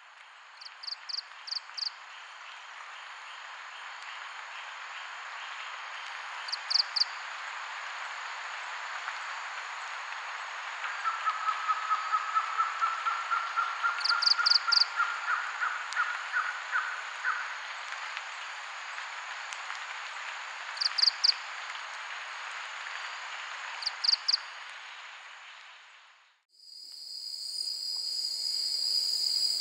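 Forest ambience: a steady insect hiss, with a bird's quick three- or four-note high chirps repeated several times and a pulsed trill that rises slightly in the middle. Near the end it cuts to a different ambience of steady, shrill insect tones.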